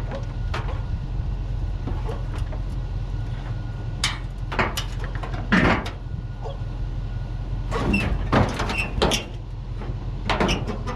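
An engine running steadily, with several sharp metal clanks and knocks as heavy truck body parts shift on a lift.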